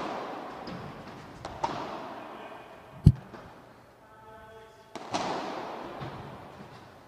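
Padel rally in a large hall: the ball being struck back and forth by solid padel rackets, a sharp pock every second or two, each ringing out in the hall's echo. The loudest is a deep thud about three seconds in.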